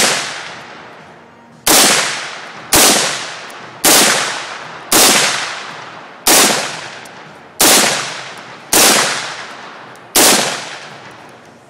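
AR-15 rifle fired nine times in slow semi-automatic shots, about a second apart, each shot followed by a long echo trailing off.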